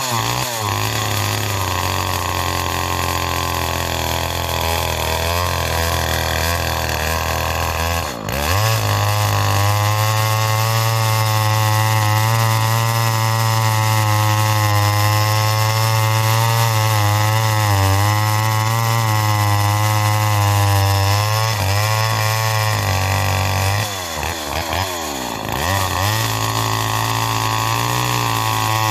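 Homelite XL two-stroke chainsaw running at high revs while cutting through a log, its pitch wavering under load. The engine briefly drops and picks back up about eight seconds in, and again a couple of times near the end.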